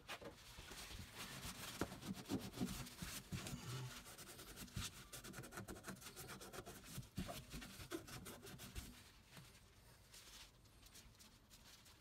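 Paper towel rubbing and wiping the exposed body of a single-handle kitchen faucet with its spout removed: a rapid scratchy rustle with small knocks, dying down about nine seconds in.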